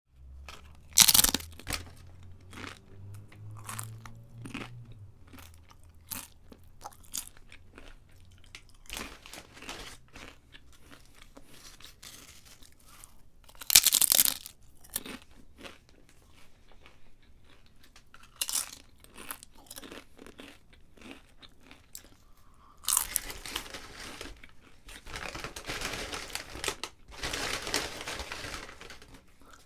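Someone eating crisp potato chips: three loud crunching bites spread through, with quieter chewing crunches between them, and a longer, denser stretch of crunching near the end.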